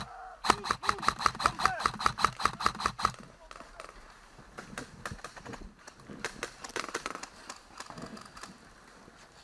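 Airsoft gun firing a long rapid string of shots, about eight a second, that stops about three seconds in. After it come fainter scattered shots.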